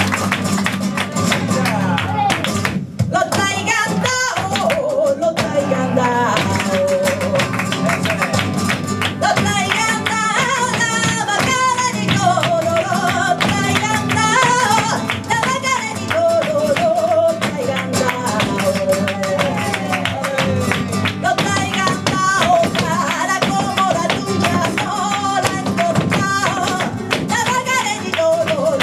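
Sevillanas sung by a woman flamenco singer over strummed flamenco guitar, with a steady rhythm of sharp strokes beneath the voice.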